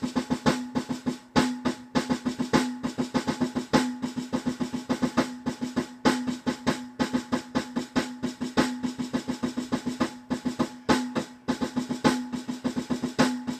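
Electronic drum kit's snare sound, struck on a mesh pad, playing a rudimental snare solo passage of rapid strokes, rolls and accents in an even rhythm, with a steady pitched ring under each hit. The accents stand only a little above the other notes, too soft for the fortissimo marking.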